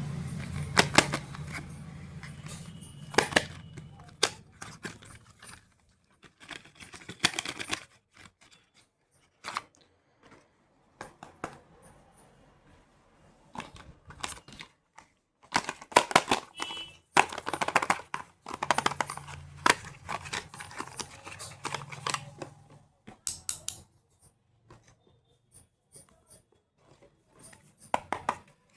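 Makeup packaging and plastic cases being handled: irregular clicks, taps and short crinkling rustles, with quiet gaps between them. A low hum sits under it near the start and again about two-thirds of the way in.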